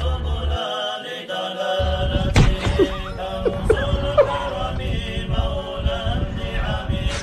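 Arabic Sufi religious chant (nasheed) with voices held over a steady drone. The deep bass drops out about a second in and comes back, and there is a sharp hit a little after two seconds.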